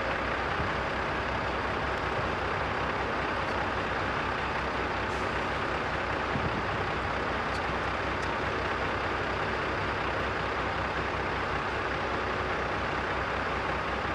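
Heavy diesel engine running steadily at a constant speed, with an even low pulsing drone and a few faint clicks over it.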